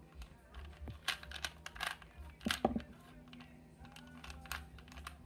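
3x3 Rubik's Cube being turned fast during a speed solve: irregular quick plastic clicks and clacks as the layers are twisted.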